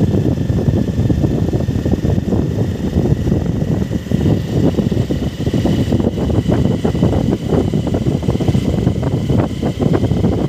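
Wind buffeting the microphone of a moving motorcycle, loud and gusty, over the engine and road noise.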